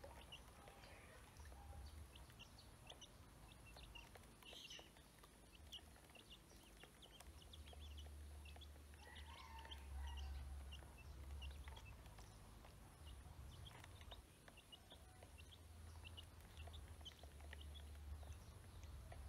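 Ducklings and chicks peeping faintly as they feed: many short high chirps scattered throughout, with a couple of lower calls, over a steady low rumble.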